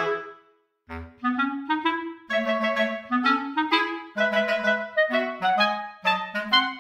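Background instrumental music with a melody of short notes; it breaks off about half a second in and starts again just before a second.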